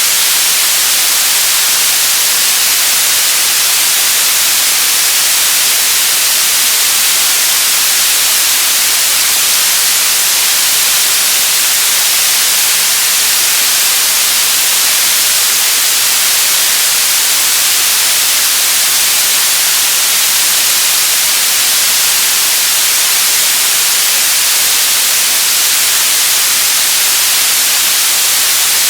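TV static: a loud, steady hiss weighted toward the highs and thin in the low end, without changes or breaks.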